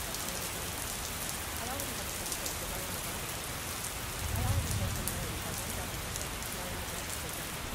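Steady rain falling, heard as an even hiss with many small drop ticks. A brief low rumble comes about four seconds in.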